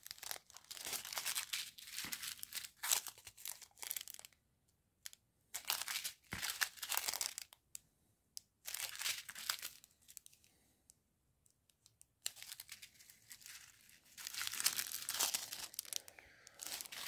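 Small clear plastic sachets of round diamond-painting drills crinkling as they are handled. The sound comes in three bouts with near-silent pauses between.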